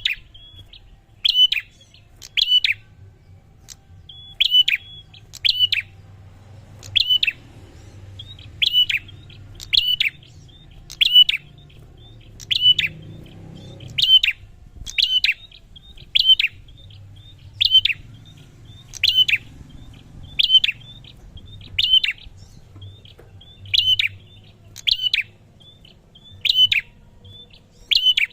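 Prinia (prenjak) calling over and over: sharp chirps, mostly in pairs, about one every second or so, each dropping quickly in pitch.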